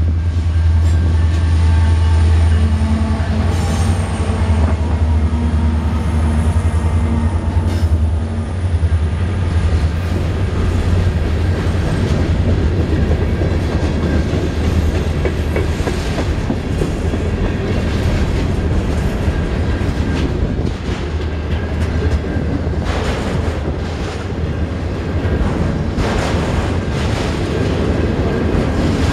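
Freight train passing. The low drone of the diesel locomotives fades over the first several seconds, leaving the steady rumble of cars rolling by with repeated clicks of wheels over rail joints.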